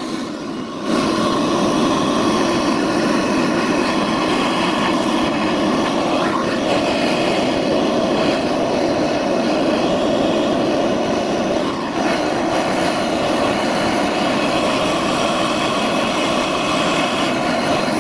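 Gas blowtorch burning steadily, heating a brass nameplate to sweat solder-tinned letters onto the backing plate. It comes up to full strength about a second in and cuts off abruptly at the very end.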